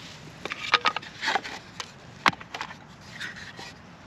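Pieces of split firewood knocking and clattering against one another as they are laid down as a base layer in a fire pit. There are several sharp knocks, the loudest a little past two seconds in, then a softer scrape.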